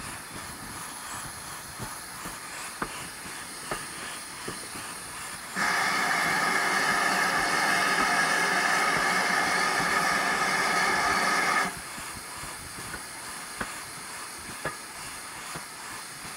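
Steam locomotive letting out a loud, steady blast of steam for about six seconds. It starts and stops abruptly, over the running noise of the train and the clicking of wheels over rail joints.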